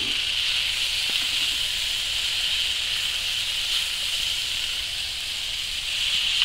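Chopped vegetables sizzling in a frying pan held over a campfire grill, a steady hiss that swells slightly near the end.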